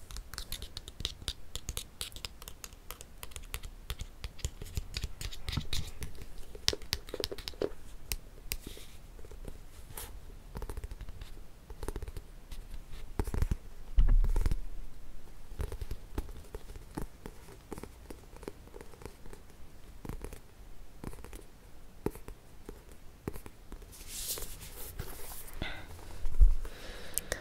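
Close-miked scratching, tapping and page handling on a book, a dense run of small clicks and rustles, with a soft thump about halfway through and another near the end.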